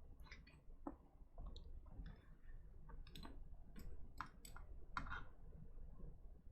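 Faint, irregular plastic clicks of keycaps being handled and fitted onto a mechanical keyboard's switches.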